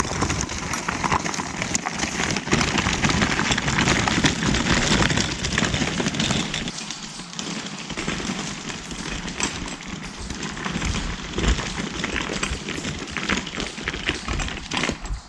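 Footsteps crunching through dry leaves and twigs, with dense crackling and rustling that starts abruptly.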